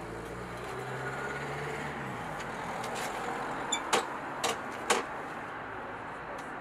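Steady outdoor background noise with a motor vehicle's engine running low for the first couple of seconds, then four sharp clicks or knocks in quick succession a little after the middle.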